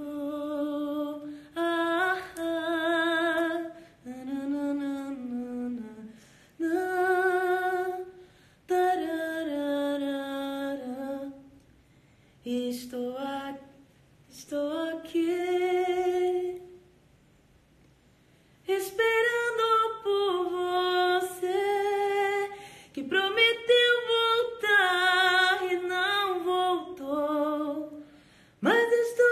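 A woman singing solo without accompaniment, a slow melody in held phrases with vibrato. There are short pauses between the phrases and a longer break a little past the middle.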